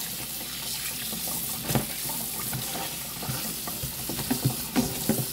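Tap water running onto raw chicken drumsticks in a plastic colander in a sink, with hands rubbing and turning the pieces under the stream, making small splashes and soft knocks.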